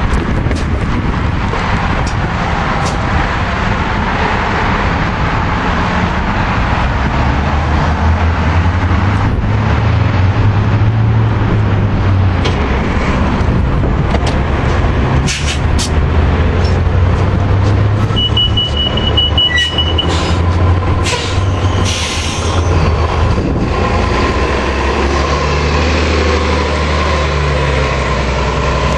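Diesel city bus engine running with a steady low hum, with short air hisses from the bus's air system in the second half. A brief rapid beeping sounds about two-thirds of the way through.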